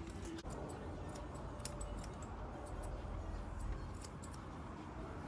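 Light, irregular metallic clicks and snips from dog-grooming tools worked through the coat, over a low steady hum.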